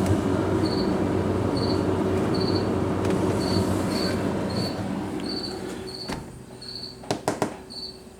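Refrigerator fan blowing air out of the vent with a low hum, loud at first and fading after about five seconds. A few knocks come near the end, and a cricket chirps steadily about once a second throughout.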